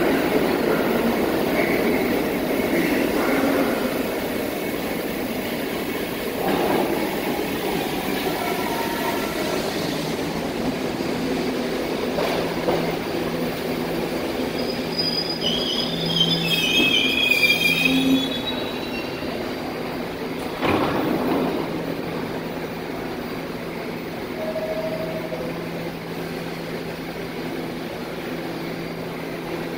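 New York City subway train pulling into the station and braking to a stop. Its wheels squeal on the rails for a few seconds midway, there is a sharp knock a few seconds later, and then it stands with a steady hum.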